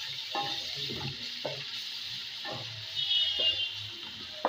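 Fried onions, whole spices and ginger-garlic paste sizzling in hot oil and ghee in a metal pot, stirred and scraped with a long spoon that knocks against the pot now and then. A brief high squeak about three seconds in.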